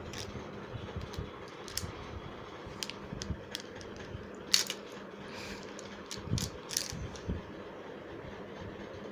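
Irregular light clicks and a few soft knocks, scattered and unevenly spaced, over a steady low background; the sharpest clicks come about four and a half and nearly seven seconds in.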